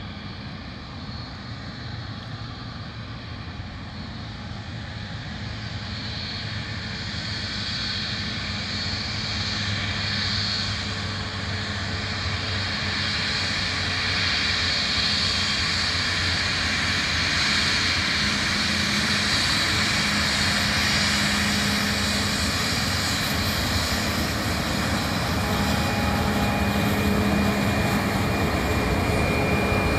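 Boeing 737 MAX's CFM LEAP-1B turbofan engines running at low thrust as the airliner taxis, a steady jet whine and rush that grows gradually louder as it approaches.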